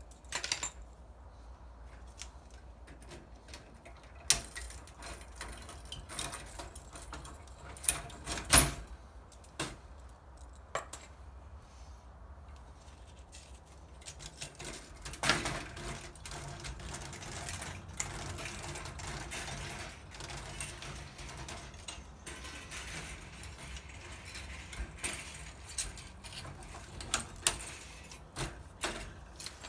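Clinks, clicks and knocks of metal parts and screws being handled as a ceramic hob is taken apart, with a few sharper knocks and a busier stretch of rattling in the middle.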